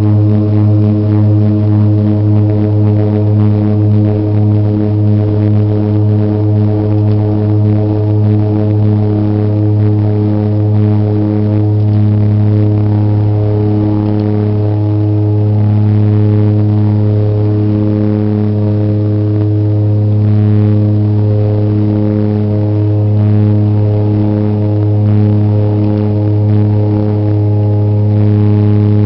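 de Havilland Canada DHC-6 Twin Otter's Pratt & Whitney PT6A turboprops and propellers droning at takeoff and climb power, heard inside the cabin. The deep, steady propeller hum pulses and beats for the first ten seconds or so, then evens out.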